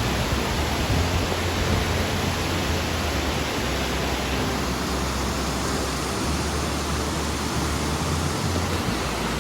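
Waterfall in heavy flow, a steady rush of falling water.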